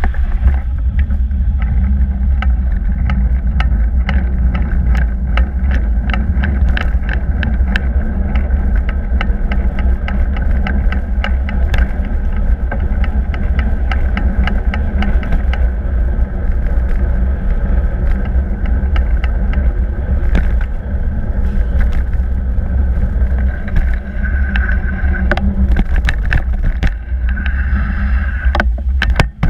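Wind buffeting the microphone of a bicycle-mounted camera while riding, a loud steady low rumble, with constant clicking and rattling as the bike runs over the road surface. A thin high squeal comes twice near the end.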